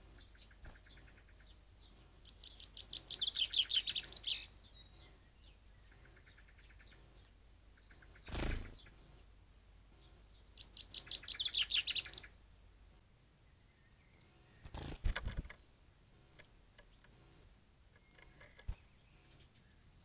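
A songbird sings two rapid, trilled phrases of about two seconds each, several seconds apart. Between them come two brief whooshes and, near the end, a single click.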